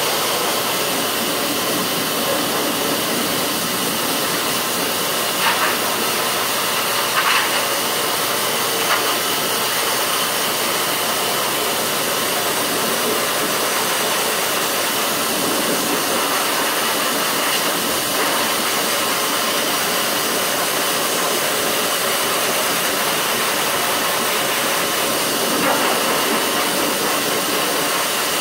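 High-velocity dog grooming dryer blowing air through its hose and nozzle into a German Shepherd's coat: a steady rush of air with a faint high whistle in it.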